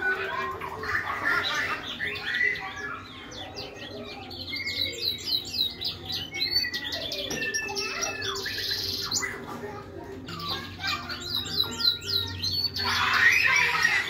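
Hybrid siskin mule (a siskin–canary finch hybrid) singing a long, lively song of rapid chirps, twitters and quick sweeping notes, with a louder burst of song near the end.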